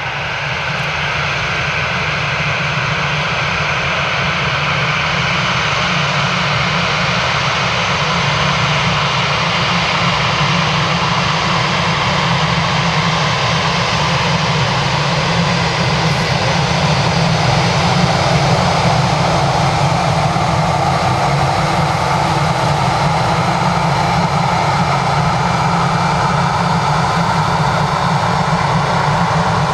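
Twin CFM56 jet engines of an Airbus A318-112 spooling up to takeoff power, growing louder over the first several seconds and then holding a steady, heavy roar with faint tones slowly shifting in pitch.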